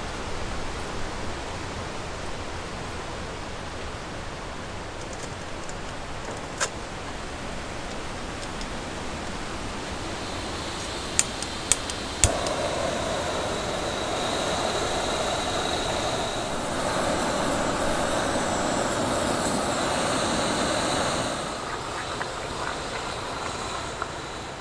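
Backpacking gas canister stove: a steady hiss with a few sharp clicks, then, about twelve seconds in, the burner lights and burns with a steady rushing sound that grows louder and drops off about three seconds before the end.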